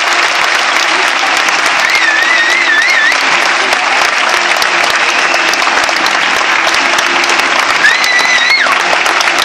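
Large crowd applauding steadily, with someone whistling loudly over it twice: a warbling whistle about two seconds in and a longer held whistle near the end.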